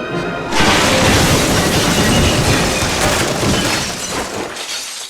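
A sudden loud crash about half a second in, ringing on and slowly dying away over about four seconds, with a shattering, breaking quality.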